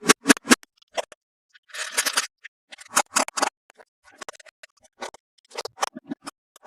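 Toy packaging being handled and opened: irregular bursts of scratching and rustling, with a denser crackly run of about half a second about two seconds in.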